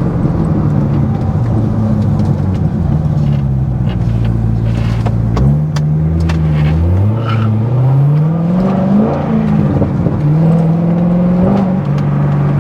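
Corvette C6 Z06's 7.0-litre LS7 V8 running at low revs. About halfway through it is put under hard throttle, and the revs climb for a couple of seconds before dropping back and settling into a steady run.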